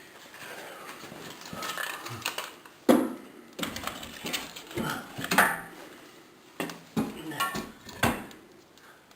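Split firewood logs being loaded into a wood stove, knocking and clattering irregularly against each other and the stove, with several sharp knocks through the middle and later part.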